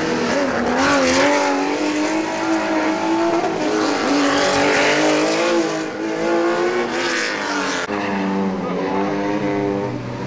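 Rally cars revving hard through tight turns, the engine note rising and falling as they brake and accelerate, with bursts of tyre squeal. For most of the stretch these are Porsche 911 air-cooled flat-six engines; a different car's engine takes over after a cut about eight seconds in.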